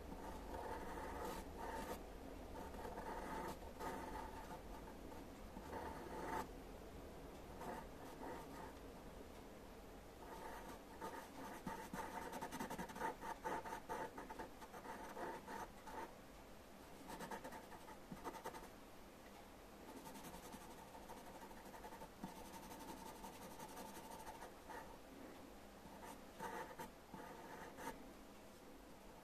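A pencil scratching on paper in clusters of short, quick strokes with brief pauses between them, as a portrait's eye is drawn and shaded.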